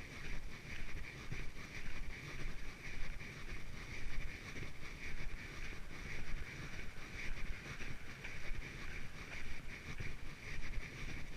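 Footsteps on a trail at walking pace, about two steps a second, with wind rumbling on the microphone and a steady hiss.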